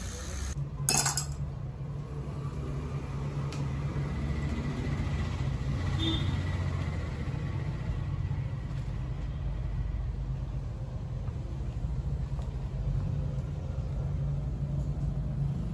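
A steady low hum, with a sharp click about a second in and a faint clink near the middle.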